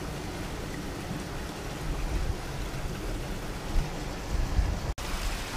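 Strong wind buffeting the microphone: a steady rushing noise with uneven low rumbling gusts, a few of them louder in the second half. The sound drops out for an instant about five seconds in.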